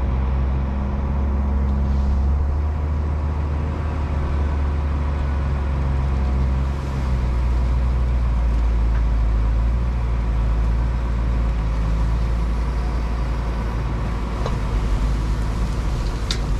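Heavy diesel engine running steadily as a Deere 644K wheel loader brings up a full bucket of chicken litter and lifts it over the spreader, its engine note shifting a little a few seconds in. A few faint clicks come near the end as the litter begins to pour.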